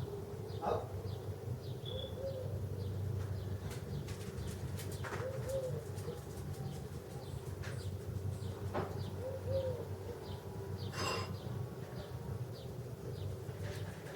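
Doves cooing every few seconds over a steady low hum, with a few faint clicks.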